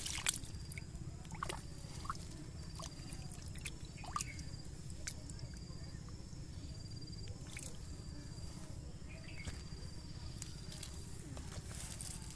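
Hands groping through shallow muddy water and wet leaf litter, with scattered drips, small splashes and sharp clicks. A faint high-pitched tone repeats in short pulses about once a second behind it.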